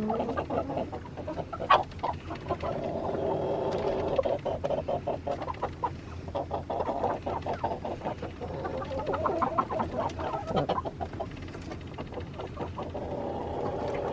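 Chickens in a coop clucking and murmuring in long, wavering stretches, with scattered clicks and rustling throughout.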